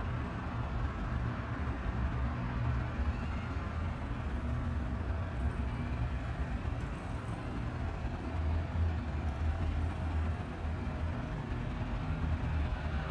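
Steady low engine drone of boat traffic on a wide river, under a faint even hiss.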